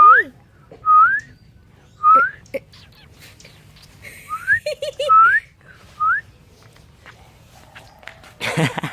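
A person whistling a string of short rising notes, about one a second with a pause in the middle, to get a dog's attention. A brief noisy burst comes near the end.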